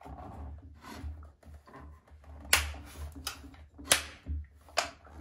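Sharp plastic clicks and knocks as hands press and seat the Husqvarna 435 chainsaw's top cover. There are softer handling sounds at first and several louder clicks in the second half.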